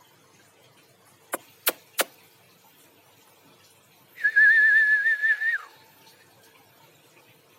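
Caged songbird giving one warbling whistle, held on one pitch with a quick flutter for about a second and a half and dropping at the end. Before it come three sharp clicks, about a third of a second apart.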